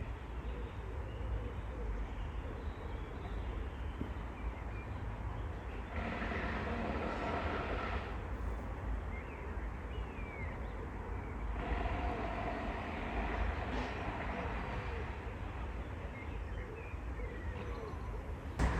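Countryside ambience: a steady low rumble of wind and distant traffic with scattered short bird calls. A distant hum of several steady tones comes in about six seconds in for a couple of seconds, and again from about twelve seconds for several seconds.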